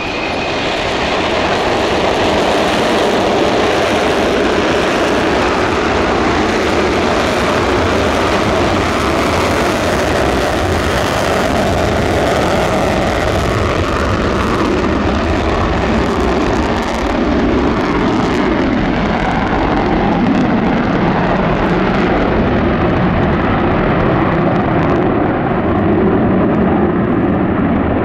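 Rockwell B-1B Lancer's four General Electric F101 afterburning turbofans running at full afterburner on the takeoff run: a loud, continuous jet noise that builds over the first couple of seconds and then holds, its high hiss thinning in the second half.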